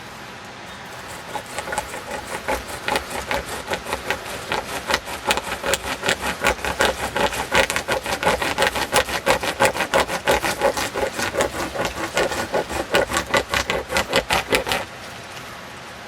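Homemade pocket chainsaw, a bare chainsaw chain pulled back and forth by hand, cutting into a tree trunk. The rasping strokes begin about a second and a half in, grow louder and quicker, and stop suddenly near the end.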